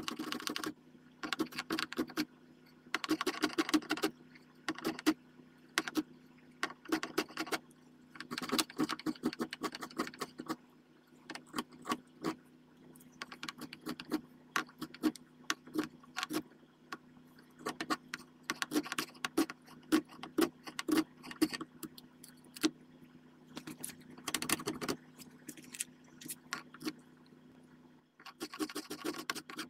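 Spokeshave cutting walnut in repeated short shaving strokes, coming in quick scraping bursts with short pauses between.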